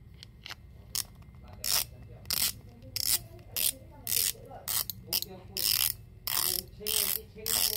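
Drag clicker of a Shimano Spheros SW spinning reel ratcheting as the spool is twisted by hand against the drag, in short clicking bursts roughly every half second.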